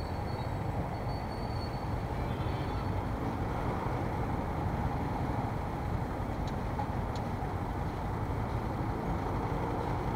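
Motorcycle engine idling steadily while stopped, with the low rumble of surrounding street traffic.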